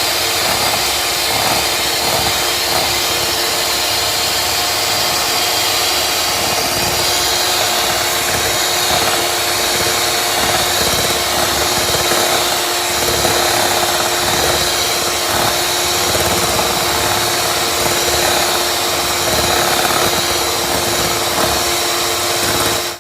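Electric mixer running steadily at one speed, beating eggs and sugar together; the motor cuts off suddenly near the end.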